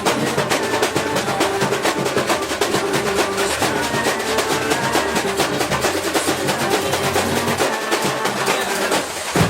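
Percussion group rehearsing: drums beating a fast, dense rhythm with rolls and a wood-block-like click over a steady bass line, with no singing.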